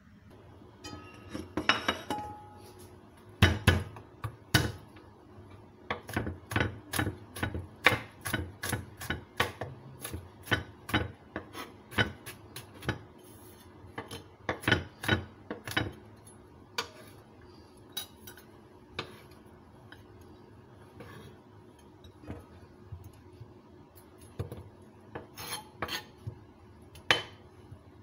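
Kitchen knife chopping garlic on a wooden cutting board: a long run of sharp, uneven knocks, two to three a second, which thins out for a while and picks up again with a few knocks near the end. A short scraping sound comes first.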